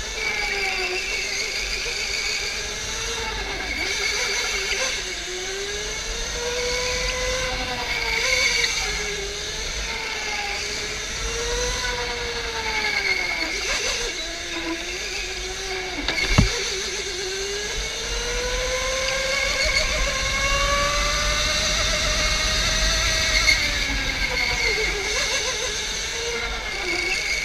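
Electric go-kart motor whining as the kart laps, its pitch rising and falling over a few seconds at a time as the speed changes, over a steady hiss. One sharp knock sounds about sixteen seconds in.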